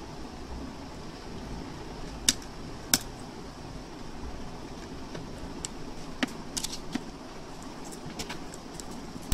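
Crackles and sharp clicks from the aluminium pouch foil and coated electrode sheets of an opened lithium phone battery being handled and unrolled: two loud snaps about two and three seconds in, then a scatter of smaller ticks. A steady low rumble runs beneath.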